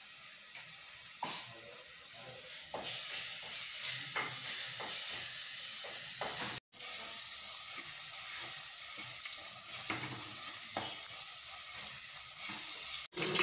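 Tomato and spice masala sizzling in a clay pot, with a wooden spoon stirring and scraping against the pot now and then. The sizzle grows louder about three seconds in.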